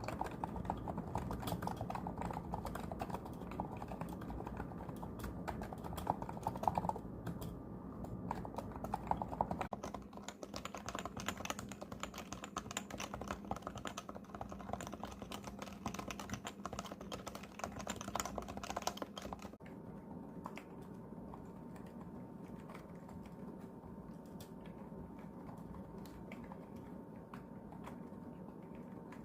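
Continuous fast typing on electro-capacitive (Topre-style) keyboards, a Noppoo and a Topre, with dense keystroke clicks. The sound changes character about a third of the way in and again about two-thirds in; the last stretch is quieter and duller.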